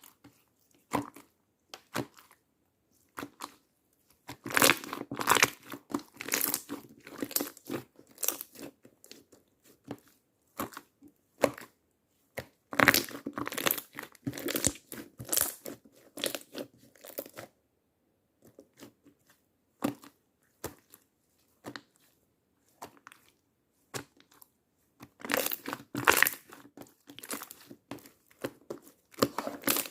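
Slime being squeezed, stretched and pressed by hand, giving irregular sticky pops and crackles. There are denser clusters of crackling at about 5, 13–17 and 26 seconds, with scattered single clicks in between.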